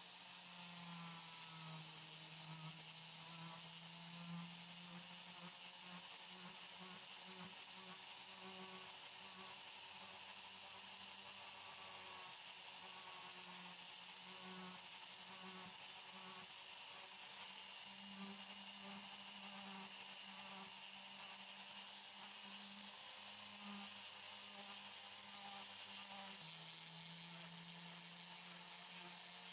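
Steady electric buzzing hum of a small machine running, its pitch wavering slightly and shifting a little about twelve seconds in and again near the end.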